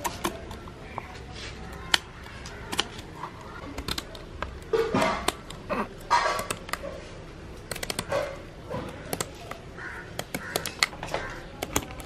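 Kitchen scissors snipping the fins off whole fish: a string of short, sharp clicks. A few louder voice-like sounds come around five and six seconds in.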